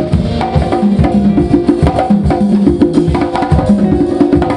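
Band music led by hand percussion playing a quick, busy rhythm, with pitched low notes running underneath.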